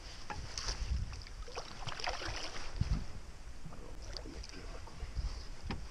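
Low rumble of wind on the microphone with light water sounds around a small boat, and a few soft knocks.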